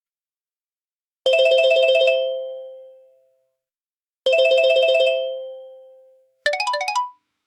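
Telephone ringing: two rings about three seconds apart, each a rapid trill that fades away. Near the end comes a short electronic ringtone, a quick run of rising notes.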